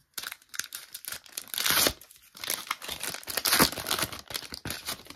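A Panini Top Class 2024 trading-card pack wrapper being torn open and crinkled by hand, in an irregular string of rips and crackles.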